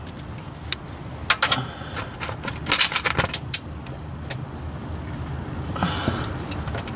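Metallic clicks and clinks of a ratcheting torque wrench and socket working on a tight oil drain plug that has not yet broken loose. The clicks come in short irregular clusters, mostly in the first half, over a steady low hum.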